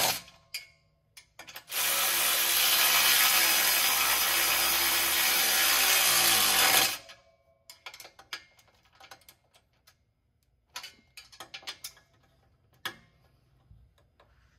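Cordless electric ratchet running bolts down on an exhaust pipe hanger. A run stops right at the start, two short blips follow, then about five seconds of steady running that drops in pitch as the motor winds down. After that come light clicks and rattles of the tool and hardware being handled.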